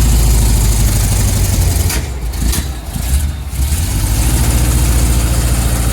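1975 Chevy C10 truck engine running steadily, its level dipping briefly between about two and three and a half seconds in. Its ignition timing is badly off, called "terrible", with the vacuum advance line unplugged, which the owner takes for the cause of its backfiring.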